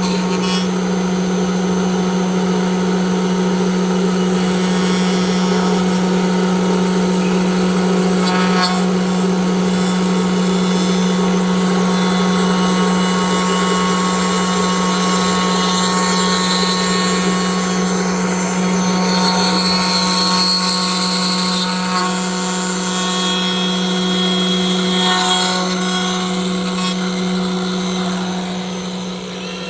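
CNC router spindle running at a steady high speed with a constant hum, with the noise of the tool working the wood.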